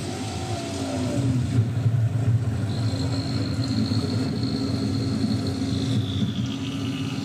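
Low, steady rumbling drone from the projection show's soundtrack over the PA. A thin high tone comes in about three seconds in, holds, then slides downward near the end.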